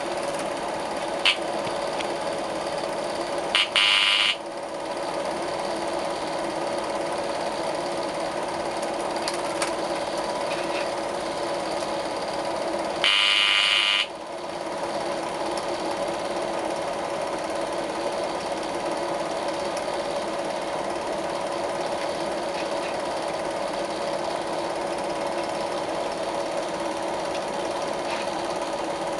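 16mm film projector running steadily with a constant mechanical hum and clatter while the silent leader plays. Two louder bursts, each under a second, come about four seconds in and about thirteen seconds in.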